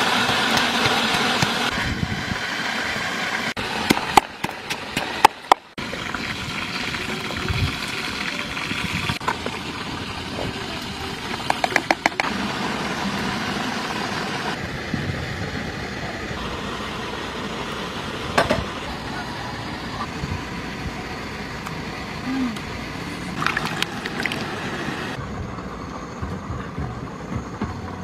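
Wooden pestle pounding chilies, garlic and salt in a mortar: scattered sharp knocks, some in quick clusters, over a steady hiss. The background noise changes abruptly several times, as at edit cuts.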